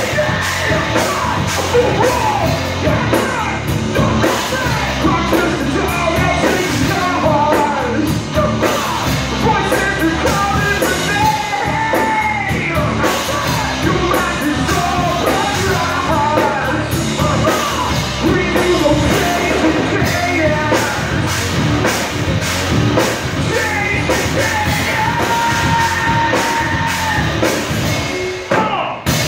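Live rock band playing loudly, with electric guitars and a drum kit under a singer's vocals. The band cuts out for a moment near the end.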